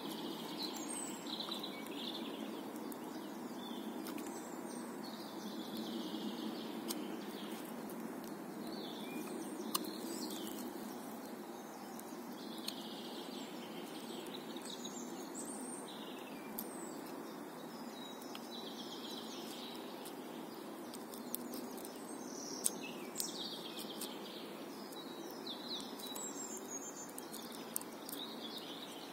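Songbirds chirping and singing over a steady low background rush, with a handful of short sharp clicks as a scandi-ground puukko knife shaves a birch branch.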